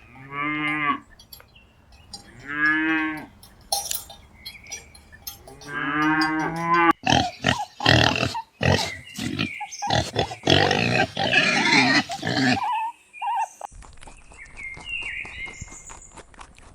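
Cattle mooing three times, each call about a second long. Then, about seven seconds in, comes a louder, harsh, noisy stretch lasting about five seconds, followed by fainter clicking and short higher calls.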